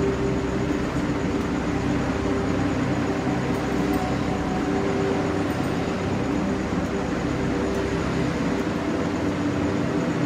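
Steady mechanical hum with a constant low drone that holds level and does not vary.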